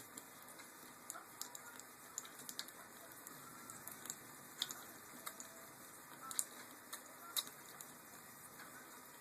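Small splashes and water patter as a green-cheeked conure bathes in a shallow toy boat, heard as faint, irregular little ticks and flicks of water.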